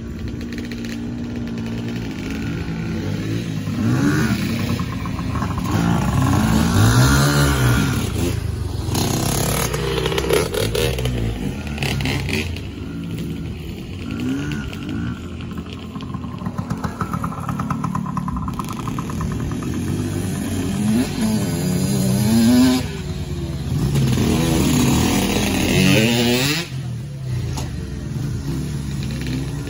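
Yamaha PW80 small two-stroke dirt bike engine being ridden, revving up and down again and again, its pitch rising and falling with the throttle and its loudness swelling and fading as the bike moves about.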